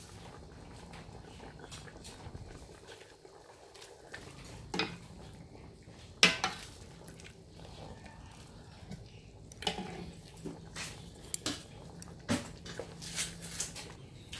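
Scattered clinks and knocks of utensils against dishes, loudest once about six seconds in and coming more often in the last few seconds, over a faint steady low hum.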